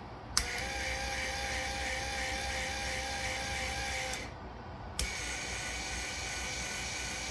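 Electric linear actuator's small motor whirring as a rocker switch is pressed. A click about half a second in starts a steady whine that stops after about four seconds. A second click comes about a second later, and the motor runs again with a slightly different tone.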